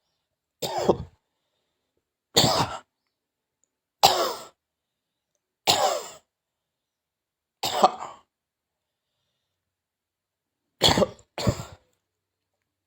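A person coughing: single coughs about every second and a half to two seconds, then a pause and two coughs in quick succession near the end, seven in all.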